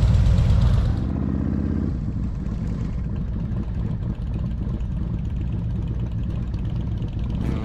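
Harley-Davidson V-twin motorcycle engine running. A louder rush in the first second drops away to a steady low engine rumble.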